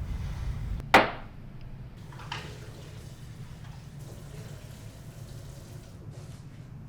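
Low rumbling snoring, cut off about a second in by a single sharp crack, then quiet room tone with a fainter click.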